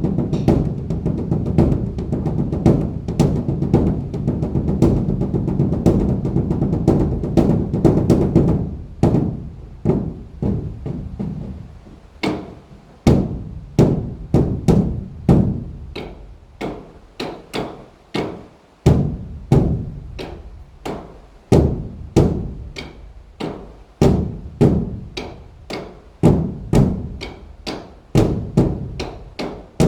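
Large Buddhist temple drum (beopgo) played in a fast, continuous roll, then in separate strikes about one a second, each dying away, with sharp wooden clicks among them.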